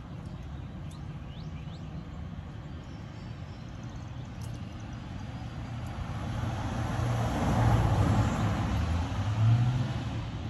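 A motor vehicle driving past: a low engine rumble that swells from about six seconds in, peaks twice, then fades.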